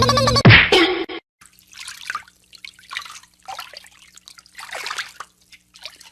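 Irregular small splashes and drips of water, a few a second and uneven in strength. A loud voice cuts off about a second in.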